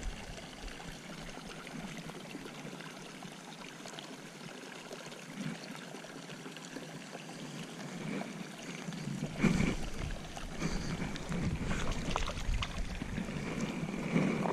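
Faint steady trickle of water. From about nine and a half seconds in come irregular knocks and rustles of fly-rod, reel and landing-net handling while a hooked trout is played.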